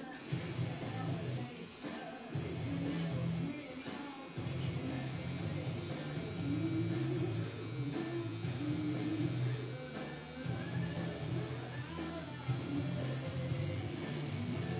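Electric tattoo machine buzzing steadily as the needle works into the skin, stopping briefly about two and four seconds in.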